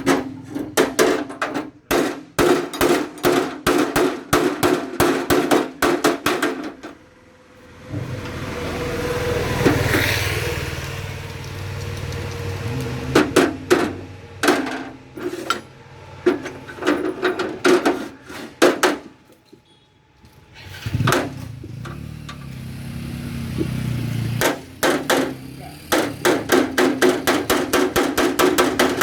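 Hammer beating sheet metal in rapid, even strikes, each with a metallic ring, typical of panel-beating a dented tractor mudguard. The hammering stops twice for a few seconds of steady machine noise.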